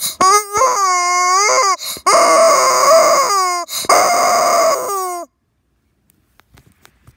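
Rubber chicken squeezed, giving a loud short squawk and then three long, drawn-out squawks that bend in pitch at their ends; the last stops about five seconds in.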